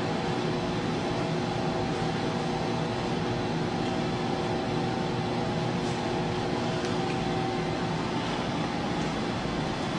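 Steady mechanical hum and hiss with several constant tones; no hammer blows stand out.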